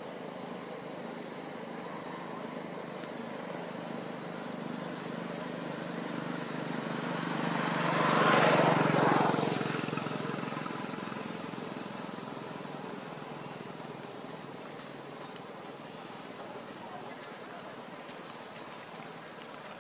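Steady high-pitched drone of insects such as crickets. Over it a passing vehicle swells up, is loudest about eight seconds in, and fades away a few seconds later.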